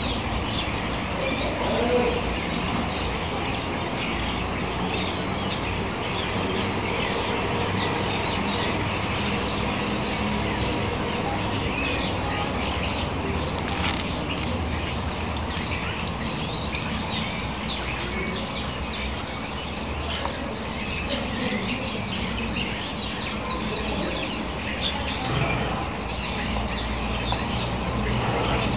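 Many small birds chirping continuously, over a steady low background noise.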